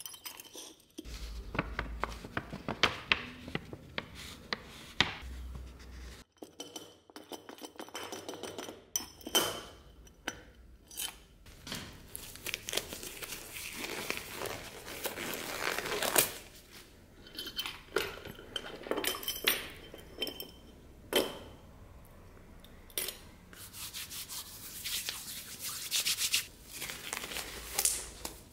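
First a few light metal clicks from a small hinged metal powder box being handled, then the rubbery rustling, stretching and snapping of nitrile gloves being pulled onto the hands.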